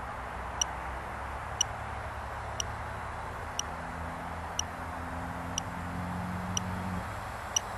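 Mini piezo buzzer on a small FPV drone beeping once a second, short high chirps, eight in all. Under it runs a steady background hiss with a low hum.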